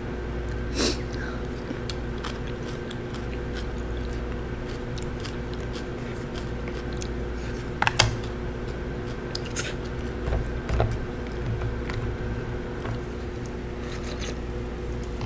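A person eating: chopsticks and a spoon clicking and tapping against plastic takeout containers and a bowl, with soft chewing. The clicks are scattered, the loudest about eight seconds in, over a steady background hum.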